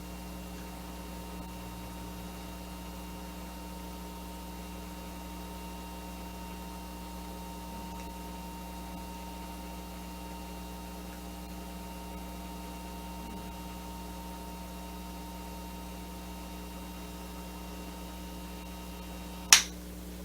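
Steady electrical mains hum with a buzz of several even tones. One sharp click comes about a second before the end.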